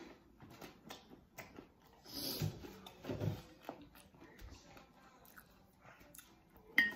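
A person chewing a mouthful of food with small wet mouth clicks, and louder chews about two and three seconds in.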